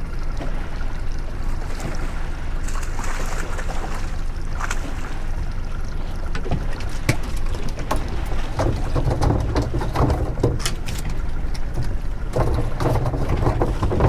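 Yamaha 115 outboard motor running at trolling speed with wind and water around the boat, a steady low rumble. Scattered sharp knocks and rattles come in the middle as a bluefish is swung aboard.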